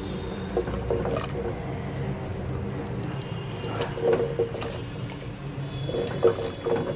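Wooden spoon stirring thick sambar dal in an aluminium pressure cooker: wet squelching of the lentils with irregular knocks of the spoon against the pot, the busiest about four seconds in and again near the end. A steady low hum runs underneath.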